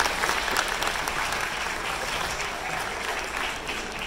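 Audience applauding, the clapping slowly fading.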